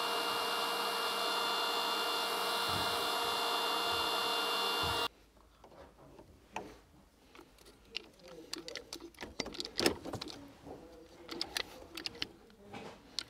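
DeWalt heat gun blowing steadily with a fan whine, switched off suddenly about five seconds in. Then come scattered quieter clicks and rubbing as a small hand-held hydraulic crimper is handled and set on a cable lug.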